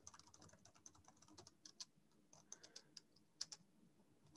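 Typing on a computer keyboard: faint, irregular keystrokes in quick runs, a few clicks louder than the rest, two of them about three and a half seconds in.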